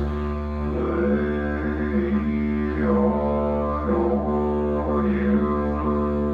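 Eucalyptus didgeridoo playing a steady low drone while the player tones the vowels A, E, I, O, U through it. The tone colour shifts about once a second as each vowel changes, over the unbroken drone.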